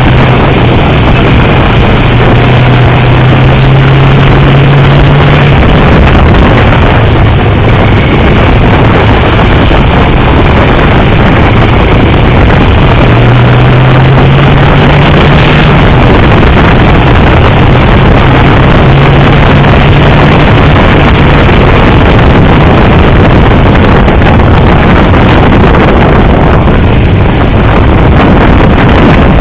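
Motorcycle riding on a race circuit, heard from an onboard microphone: loud, constant wind rush over the mic with the engine's note underneath, climbing twice under acceleration.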